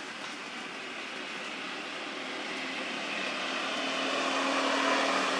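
A motor vehicle passing, its engine hum and road noise growing louder and loudest near the end.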